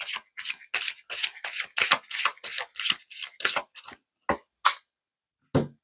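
A deck of affirmation cards being shuffled by hand: a quick run of papery swishes, about three or four a second, thinning to a few single ones near the end.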